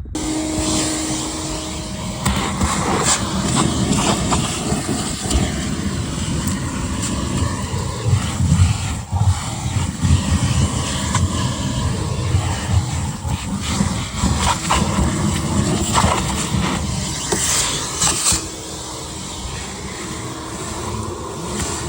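Vacuum cleaner running steadily while it sucks out the trunk lid area, switched on right at the start, with scattered clicks and rattles of debris going up the nozzle.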